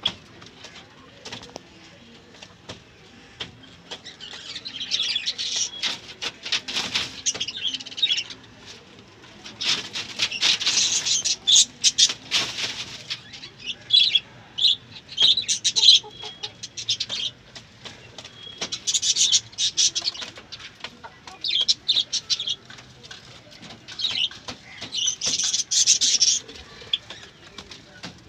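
Country chickens flapping their wings and chirping in repeated high-pitched bursts that come and go every few seconds.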